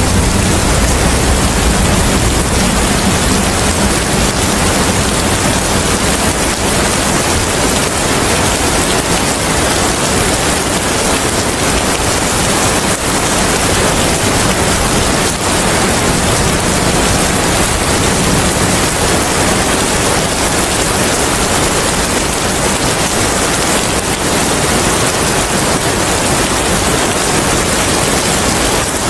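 Steady heavy rain, a dense even hiss, with a low rumble in the first several seconds that eases off.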